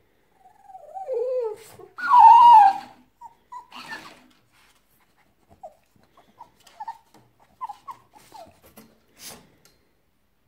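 French bulldog whining and grumbling at a talking hamster toy in short, high-pitched squeaks. About two seconds in comes a louder, higher-pitched copy of the whine, the toy repeating the dog's sound back.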